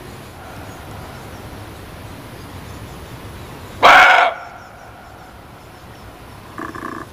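Muntjac (barking deer) giving one loud, short bark about four seconds in, then a shorter, fainter call near the end, over a steady background hiss.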